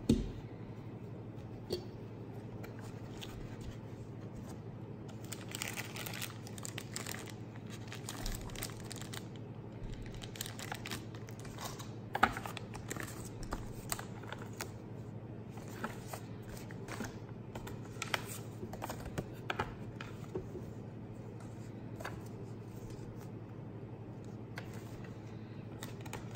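Thin plastic bag crinkling and rustling as it is pulled out and unfolded, in irregular bursts of handling noise, with a few sharp clicks of handling against a hard plastic case, one right at the start. A steady low hum runs underneath.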